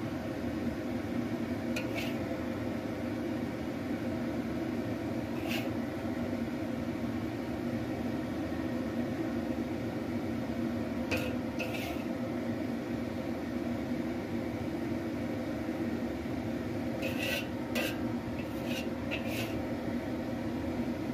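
Metal spatula tapping and scraping against a ceramic plate while stir-fried vegetables are served onto it: a few single clicks, then a quick cluster of four near the end. A steady low mechanical hum runs underneath throughout.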